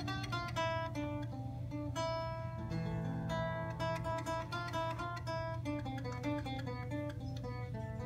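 Handmade theorbo, a long-necked bass lute, played solo: a melody of single plucked notes in quick succession over deeper bass notes that ring on.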